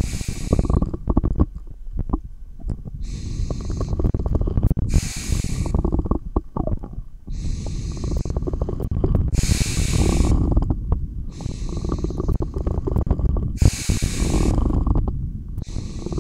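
Slow, deep breathing picked up through a stethoscope, a few breaths in and out ahead of an exhaled breath-hold. Underneath runs a continuous low rumble with small thumps from heartbeat and stomach growls.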